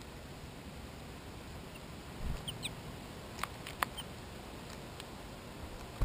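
American goldfinches feeding at a plastic window seed feeder over a steady hiss: a soft thump of a bird landing a little after two seconds, a few faint high chirps, then two sharp clicks of beaks pecking seed against the feeder.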